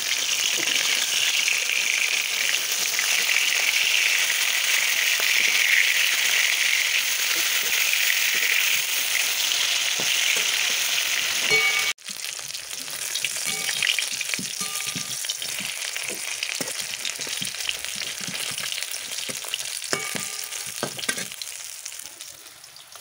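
Rohu fish pieces sizzling as they fry in hot oil in a metal kadai, with a metal spatula scraping and clinking against the pan as the pieces are turned. The sizzling is loudest in the first half; after a sudden break about halfway it is quieter, with more spatula scrapes, and fades near the end.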